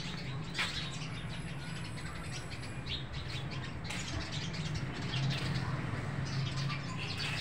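Many small birds chirping together, a dense run of quick overlapping chirps, over a steady low hum.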